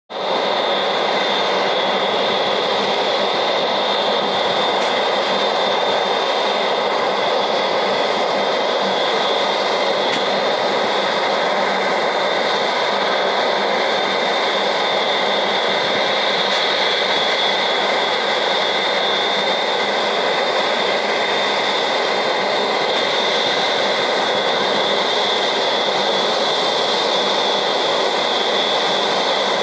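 Airbus A380-800's four turbofan engines running at taxi power: a steady jet whine with a high fan tone over a broad rushing noise.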